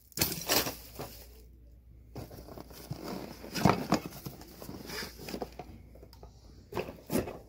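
Tool bag contents being handled and shifted by hand: irregular rustling of fabric and rags with a few light knocks, the sharpest about halfway through and again near the end.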